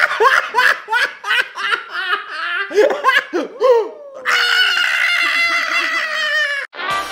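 A man and a woman laughing hard in rapid short bursts. About four seconds in comes a long, steady, high held sound that cuts off abruptly near the end.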